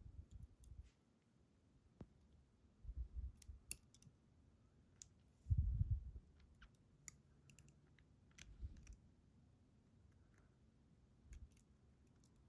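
Faint, scattered clicks and light taps of small metal lock parts being handled while pins are loaded back into a pin-tumbler lock's chambers, with a few soft low bumps of handling.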